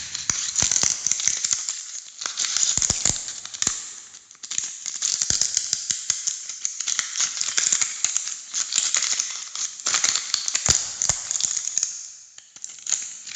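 Ice freezing sound effect: dense, fine ice crackling with a few sharper cracks, swelling and fading in several waves.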